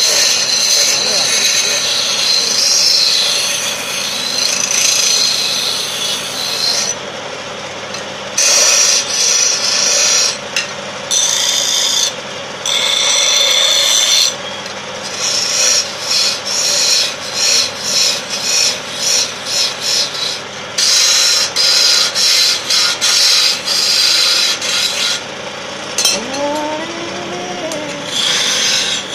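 Wood lathe spinning a wooden spindle while a hand chisel cuts into it, a scraping sound that comes and goes in bursts as the tool is pressed in and eased off, with quick short cuts in the latter half.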